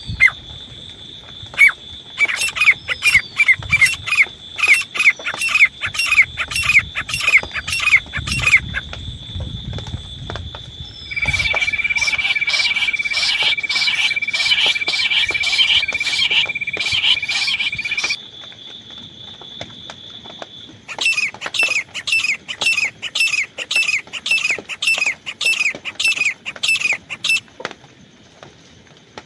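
Grey francolin (desi teetar) calling: three bouts of loud, sharp, falling notes repeated about twice a second. A steady high whistle sounds under the middle bout.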